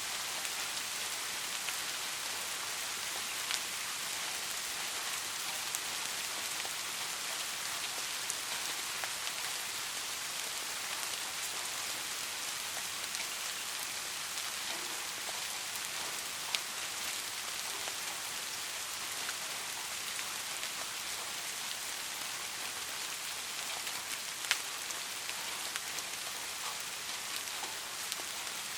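Steady soft rain falling, an even hiss with the light, scattered patter of individual drops, a few sharper drop hits standing out now and then.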